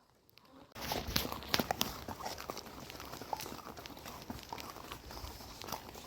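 Horse walking: uneven hoof steps and clicks over a steady noisy background. They start after a brief silence under a second in.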